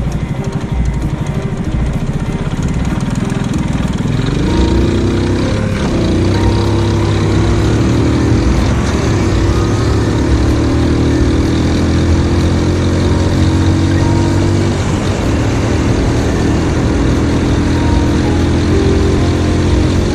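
Honda Super Cub 50's single-cylinder four-stroke engine, bored up to 75cc, running under way. Its pitch rises and falls a few seconds in, then holds steady.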